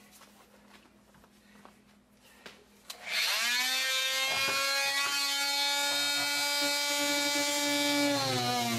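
Dremel oscillating multi-tool switched on about three seconds in after a few faint handling clicks, winding quickly up to a steady high-pitched buzz. Near the end its pitch drops and wavers as the blade is pressed into the wall to cut the opening for an electrical box.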